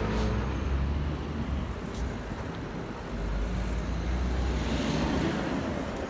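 City road traffic: a steady low rumble of car and bus engines and tyres on the road, swelling slightly near the end as a vehicle passes.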